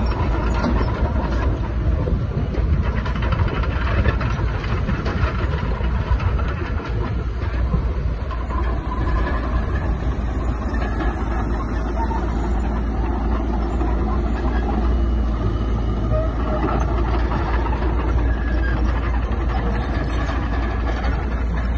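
Heavy diesel earthmoving machinery running steadily under load, a dense, continuous engine and mechanical noise with a strong deep rumble.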